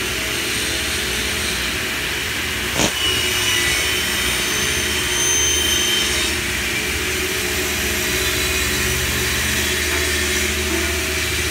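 Frame tenoning woodworking machine running with a steady mechanical hum. A sharp clack comes about three seconds in, followed by a high whine for about three seconds.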